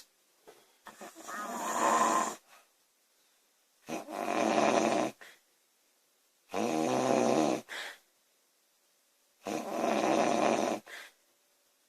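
A woman snoring loudly during sleep: four snores, one about every three seconds, each lasting a second or more, with quiet gaps between.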